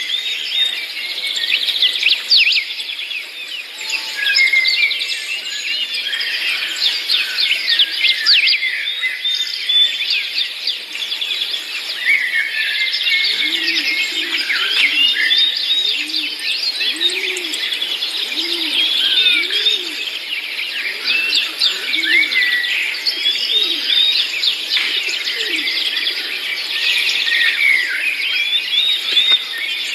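Many small songbirds chirping and twittering at once, a dense, continuous chorus of quick high notes and trills. Around the middle, a run of short, low, repeated notes sits beneath the chirping.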